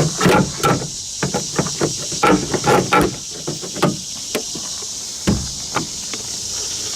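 Ratchet and 11mm socket clicking quickly as the side mirror's mounting nuts are loosened, about five clicks a second for the first three seconds, then a few scattered knocks, over a steady hiss.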